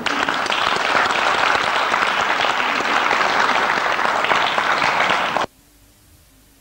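Audience applauding: steady, dense clapping that cuts off suddenly about five and a half seconds in.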